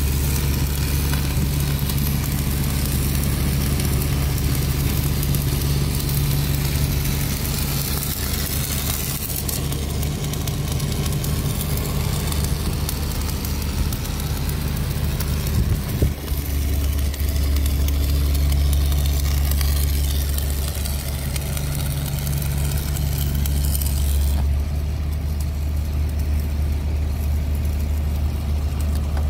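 A crawler crane's heavy diesel engine running steadily at idle with a low hum, and a single sharp knock about halfway through. No pile-hammer blows are heard.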